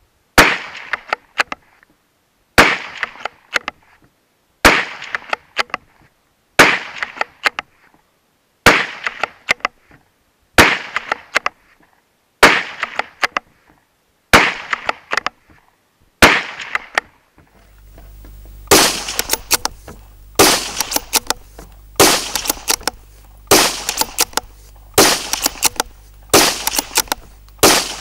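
Lithgow LA101 bolt-action rimfire rifle firing .22 Magnum rounds, one shot about every two seconds, each followed by the clicks of the bolt being worked to chamber the next round. About two-thirds of the way through, a steady low hum comes in and the shots come a little faster.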